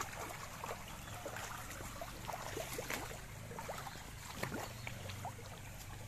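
Floodwater flowing and gurgling, with many short bubbling blips over a steady low rumble.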